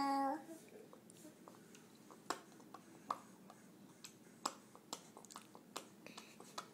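A baby chewing a mouthful of mashed banana and smacking his lips: soft, irregular wet clicks about twice a second, after a brief hum right at the start.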